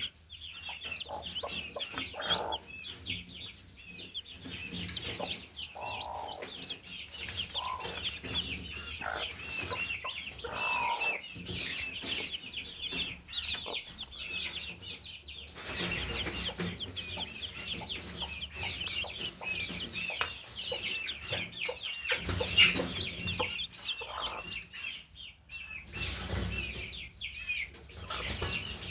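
A brood of baby chicks peeping continuously, many short high chirps overlapping, with a hen giving a few lower clucks now and then.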